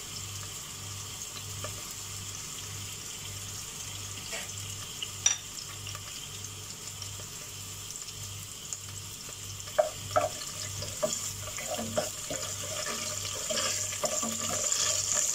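Whole spices and shahi jeera (black cumin) sizzling in hot oil in a pot, the oil tempering the spices. Scattered crackling pops come more often in the second half as the seeds start to crackle, and the hiss grows louder toward the end as a spoon stirs them.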